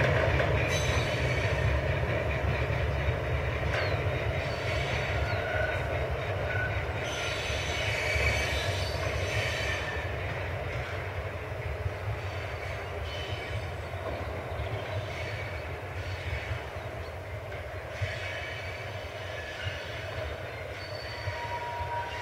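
Fuel train of tank wagons behind a Class 66 diesel-electric locomotive rolling away, its low rumble fading steadily as it recedes. A few faint, brief wheel squeals come about five seconds in.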